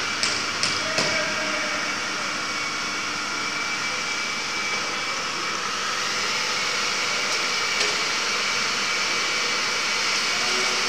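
CNC wood milling router running: a steady machining noise with a held high whine, and a few sharp ticks in the first second.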